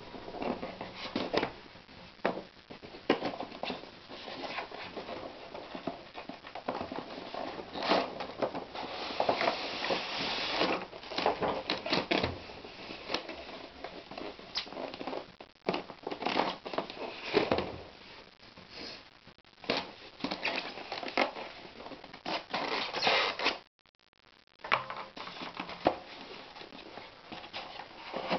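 Rustling and crinkling of packaging with irregular clicks and taps as a boxed scale model is handled and unpacked, stopping briefly about 24 seconds in.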